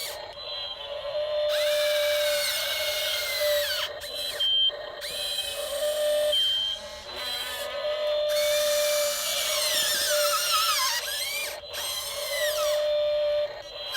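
Small electric motors of radio-controlled construction models running in short spells: a steady whine with higher tones that rise and fall as the motors speed up and slow down, stopping and restarting several times.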